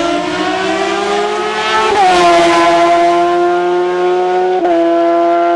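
Hill-climb race car engine at high revs, its pitch rising as it accelerates, then dropping sharply about two seconds in as it goes by at its loudest. It holds a steady high note, then steps down quickly near the end with an upshift.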